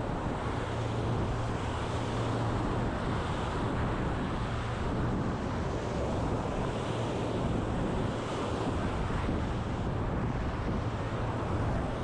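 Ocean surf washing steadily onto the beach, with wind buffeting the microphone and a steady low hum underneath that is strongest in the first few seconds.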